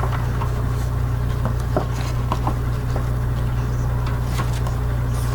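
Steady low hum, with a few small clicks and rustles as a cardboard subscription box and its packaging are handled.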